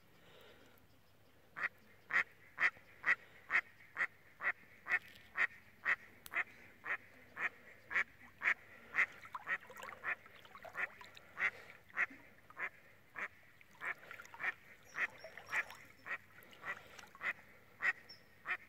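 A duck quacking over and over in a long, even series of short quacks, about two a second, beginning about a second and a half in.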